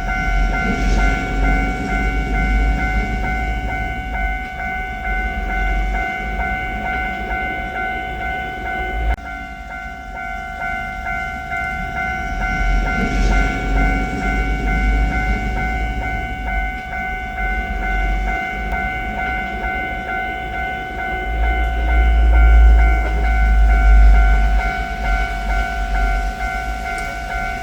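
Japanese level-crossing warning bell ringing its steady electronic clang throughout, while a train's low rumble rises and falls around it and is loudest about three-quarters of the way through.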